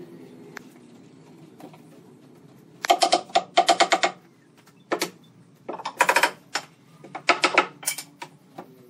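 Quick runs of sharp taps on wood, several strikes in a fast row, each run about half a second long, with single taps between them.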